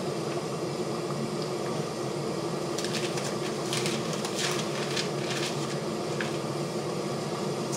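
Paper pages rustling and flicking for a couple of seconds about three seconds in, as a Bible is leafed through to find a passage. Under it runs a steady room hum.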